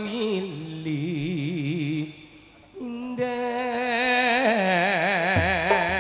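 A man singing solo into a microphone through a sound system: long, drawn-out notes with a wide vibrato, a short break about two seconds in, then a high held line. A drum comes in with low strokes near the end.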